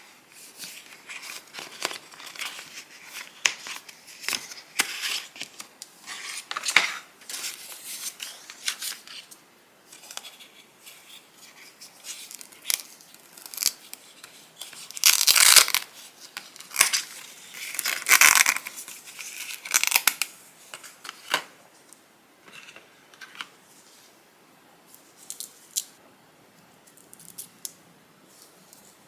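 Apple Watch packaging being opened by hand: paper tearing in short rips, with rustling and crinkling of wrapping. The loudest tears come about fifteen and eighteen seconds in.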